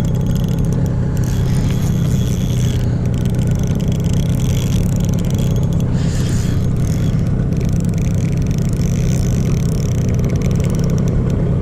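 Boat motor running steadily, a continuous low hum.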